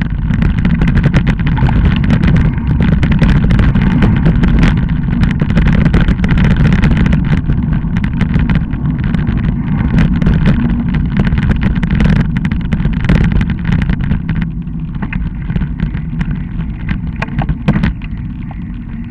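Bicycle ridden along a bumpy woodland dirt trail, heard through a camera mounted on the bike: a steady rumble with constant rattling clicks and knocks from the bumps, easing off in the last few seconds.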